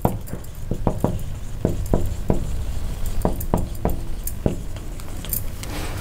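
Marker writing on a whiteboard: a string of short, irregular knocks and taps as the pen strikes and strokes the board, about a dozen in six seconds, over a steady low hum.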